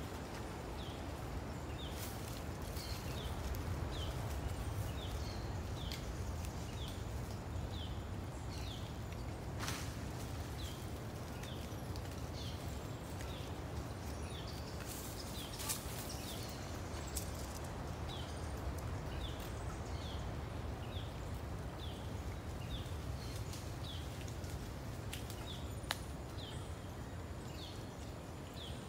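A small animal's short high chirp, falling in pitch, repeated evenly about three times every two seconds, over a low steady outdoor rumble with a few sharp clicks.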